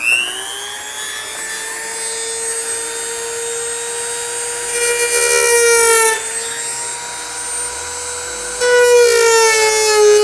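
High-speed rotary tool with a cutting wheel spinning up to a steady high-pitched whine, then cutting into a carbon fiber hood. The whine grows louder and its pitch sags as the wheel bites, about five seconds in and again near the end.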